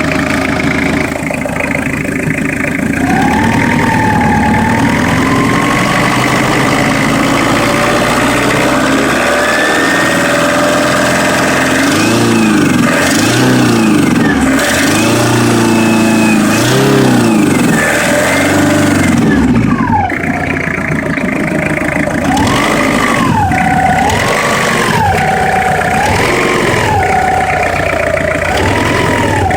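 Citroën XM 2.5 turbodiesel DK5 engine running, its pitch climbing slowly early on. It is then revved up and let fall back again and again in a string of short blips, about a second or two apart, in the second half.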